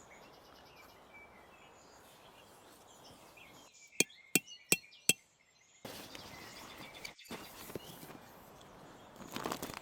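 Four sharp knocks in quick succession, about three a second, over faint steady outdoor background noise.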